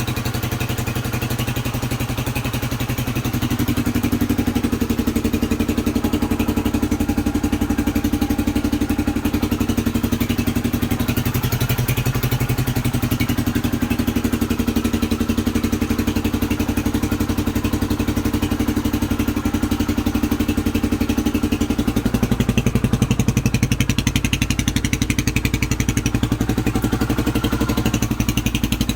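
An engine running steadily, its note changing slightly about three seconds in and again about twenty-two seconds in.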